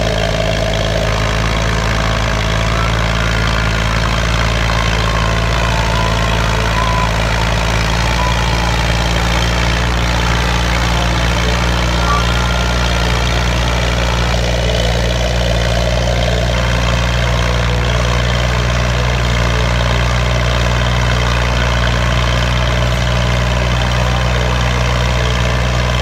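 Massey Ferguson 240's three-cylinder diesel engine running steadily under heavy load, hauling a trolley piled with sugarcane.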